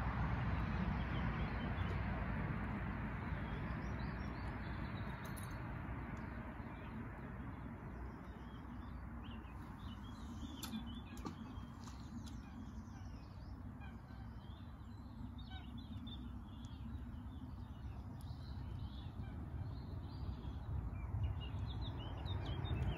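Small birds chirping and singing, many short calls, over a steady low rumble that eases off in the middle and swells again near the end.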